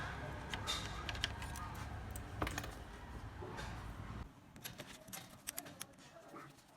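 Scattered light clicks and taps over a low steady hum; the hum cuts off suddenly about four seconds in, leaving only sparse clicks.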